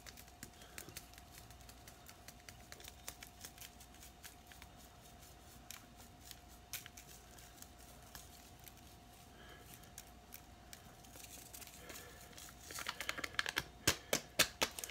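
Seasoning shakers being handled and shaken over raw pork steaks: faint scattered clicks and rattles, with a run of quick clicks near the end, over a faint steady hum.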